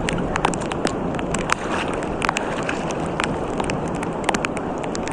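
Rain at the seashore: a steady rushing noise, with many scattered sharp taps of drops striking close by at irregular intervals.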